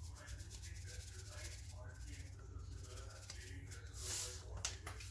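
Salt being shaken from a container into a steel mixer-grinder jar: a faint dry rattle and hiss, with a brief louder hiss about four seconds in, over a low steady hum.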